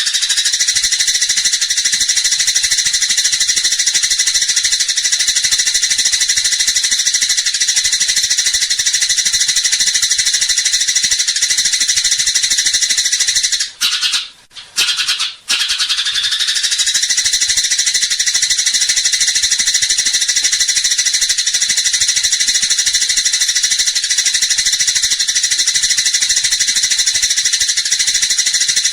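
Eurasian tree sparrows giving fighting chatter: a loud, fast, unbroken rattling stream of high calls, broken off briefly about halfway through.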